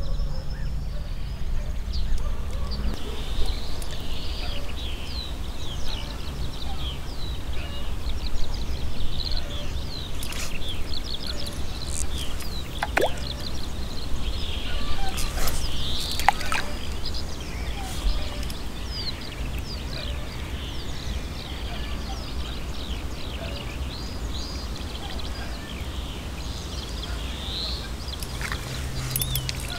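Many birds chirping and calling in short, quick notes over a steady low rumble, with a few sharp clicks about halfway through.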